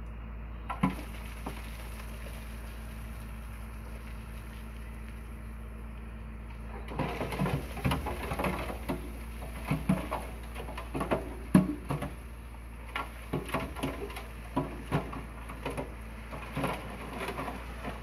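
Dump truck engine running steadily as the bed tips up, with a couple of knocks about a second in; from about seven seconds in, rock and soil slide out of the raised bed onto the heap in a run of irregular knocks and clatters.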